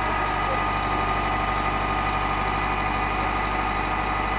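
Dutch level-crossing warning bells ringing rapidly and without a break while the half-barriers lower, with a low steady hum underneath.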